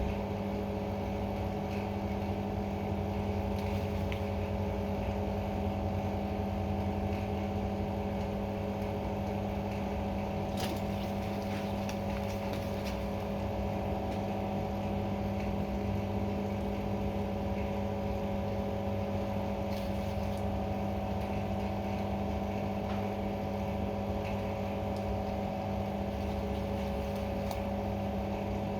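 A steady mechanical hum with a few fixed tones over a low rumble, unchanging throughout, with a few faint clicks.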